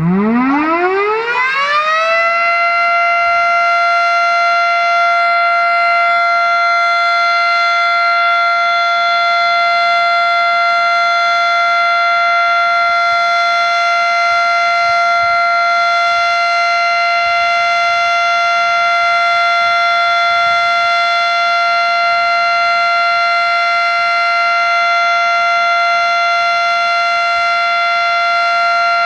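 Federal Signal Model 5 outdoor warning siren with a 12-port rotor winding up from a low growl to full pitch over about two seconds, then holding a loud steady tone: the steady Alert signal of a siren test.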